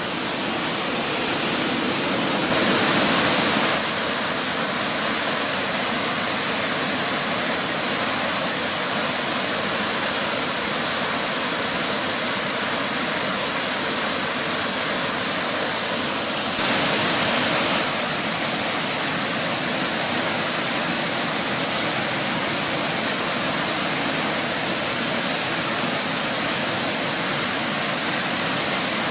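Waterfall cascades rushing in a steady, loud, even hiss. It swells abruptly for a second or so twice, about two seconds in and again past the middle.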